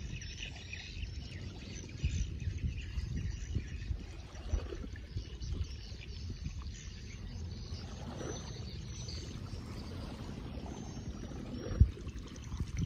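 Outdoor river-shore ambience: a low, uneven rumble with a few faint bird chirps, and a single sharp thump near the end.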